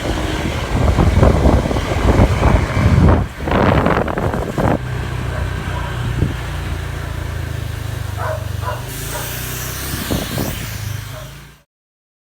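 A motor vehicle running, heard with rough wind and road noise. A steady low engine hum settles in after about five seconds, and the sound cuts off abruptly just before the end.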